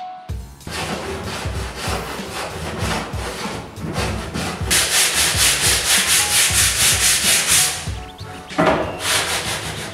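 Plywood being sanded by hand with quick back-and-forth strokes, about five or six a second. The strokes get harsher and louder from about halfway through, stop briefly near the end, then start again for a moment.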